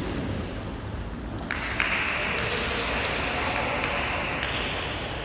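Audience applauding in a hall, the clapping swelling about one and a half seconds in, with no table tennis ball hits heard.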